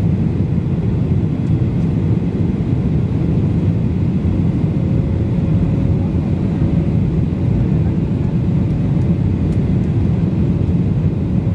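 Steady cabin noise of a Boeing 777-300ER on final approach with flaps extended: a constant low rush of engine and airflow noise heard from a seat over the wing, with a faint steady hum.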